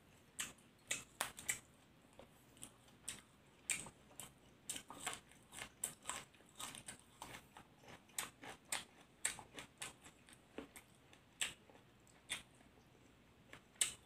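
Close-up mouth sounds of someone chewing grilled-pork larb and sticky rice: irregular soft clicks and smacks, a few a second, with a short pause near the end.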